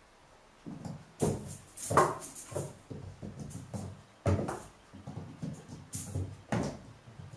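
A kitten scampering and pouncing on a laminate floor: irregular clicks and thumps of paws and claws on the boards, loudest about two seconds in and again just past the middle.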